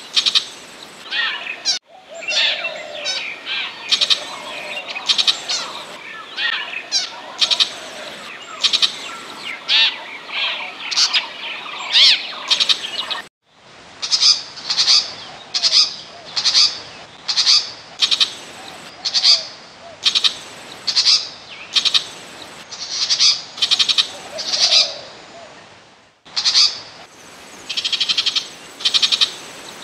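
Recorded Burmese shrike calls played as a lure: a varied, scratchy chattering run of high notes, then a long series of evenly spaced sharp calls about two a second. The recording cuts out briefly three times, as if looped or spliced.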